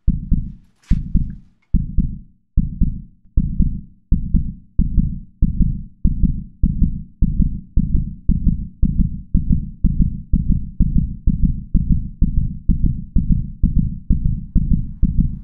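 Heartbeat sound effect: low, muffled thumps beating steadily and gradually quickening, from a little over one beat a second to about two a second.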